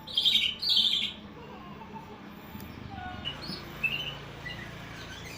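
Green leafbird (cucak ijo) giving an unusual call: two loud, harsh notes in the first second, then softer short chirps and whistles.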